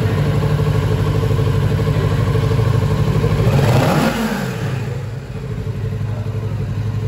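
Kawasaki Ninja 650's parallel-twin engine idling steadily, with one short blip of the throttle about halfway through that rises and falls back to idle.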